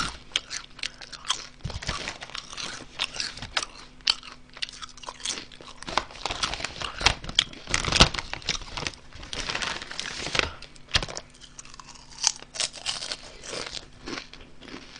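Honey Butter Chip potato chips crunched and chewed close to the microphone, a steady run of crisp crackles. The foil snack bag crinkles as a hand reaches into it about eight seconds in, the loudest moment.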